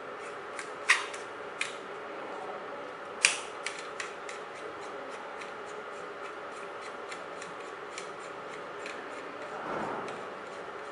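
Camera adapter being screwed by hand onto a slit lamp's beam splitter: a few sharp clicks in the first four seconds, then fainter irregular ticking as the threaded ring turns, and a soft rub near the end.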